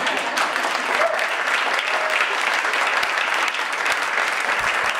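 Audience applauding: a steady, dense patter of many hands clapping at once.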